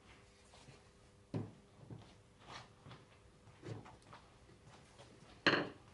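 Wooden furniture parts knocking together as a ladder-like side frame of a curio shelf is set and fitted onto a wooden box section: about five knocks, one sharp about a second and a half in and the loudest near the end.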